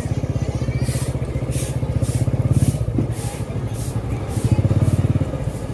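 A motor vehicle's engine idling with a fast, even low pulse, along with soft scuffing strokes about twice a second.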